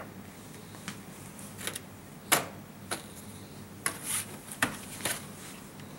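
Scattered light clicks and taps of small hard objects being handled on a tabletop, about eight in all, the loudest about two and a half seconds in, as an HO-scale model boxcar is lifted off a model railroad turnout.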